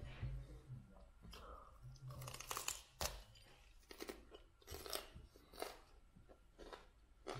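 A mouthful of raw broccoli being chewed: irregular crisp crunches, about one or two a second.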